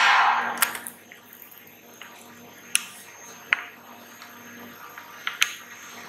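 Quiet room tone with a faint steady hum: a brief rustling burst at the start that fades within a second, then a few scattered sharp clicks.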